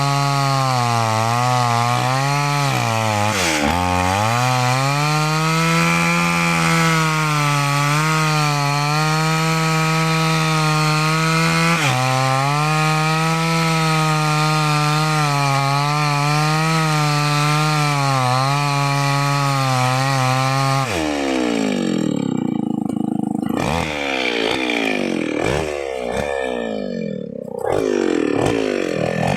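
New West 568 two-stroke chainsaw cutting wood under load, its engine pitch wavering and briefly dipping as it bogs in the cut. In the last third the engine speed rises and falls rapidly, as when the bar works in and out of the cut or the throttle is blipped.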